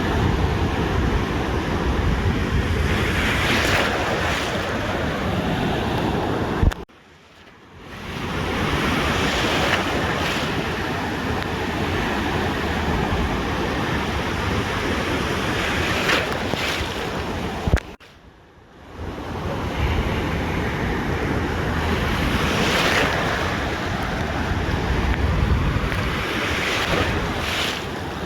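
Ocean surf washing onto a beach in repeated swells, with wind buffeting the microphone. The sound cuts out abruptly twice, about 7 and 18 seconds in, and fades back in each time.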